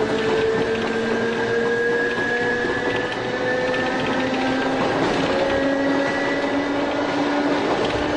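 Tobu 5700 series electric train running, its nose-suspended traction motors and gears whining over the rumble of wheels on rail. The whine slowly rises in pitch as the train gathers speed.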